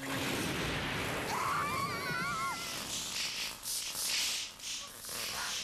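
Anime sound effects of an energy attack: a steady rushing noise, a warbling high tone from about one to two and a half seconds in, then a run of whooshing blasts in the second half.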